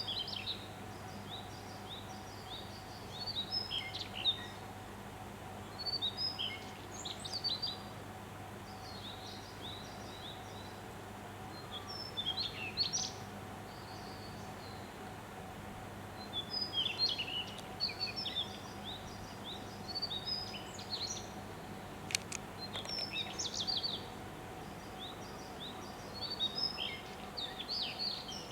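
Daurian redstart singing: short phrases of quick, high chirping notes, repeated every two to four seconds, over a faint steady hum.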